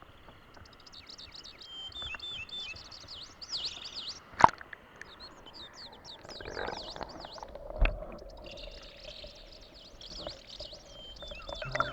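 Mountain stream water running, with many quick high chirps over it, a sharp click about four and a half seconds in and a dull thump near eight seconds.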